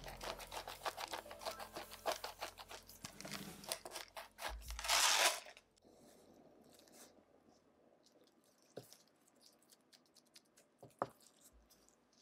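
Hand pepper mill grinding black pepper: rapid crunchy clicking for about five seconds, loudest just before it stops. Afterwards only faint soft handling sounds and a couple of light taps as the dough is rolled.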